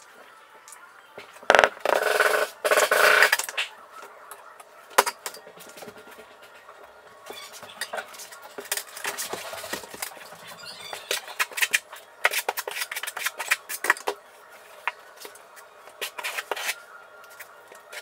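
Steel trowel scraping and clinking as thinset mortar is scooped from a plastic bucket and spread, in quick irregular strokes through the second half. About two seconds in there is a louder rattling scrape of tools or tile that lasts a couple of seconds.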